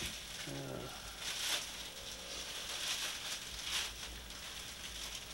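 A brief low murmur of a voice about half a second in, then a few soft breathy rustles over steady tape hiss.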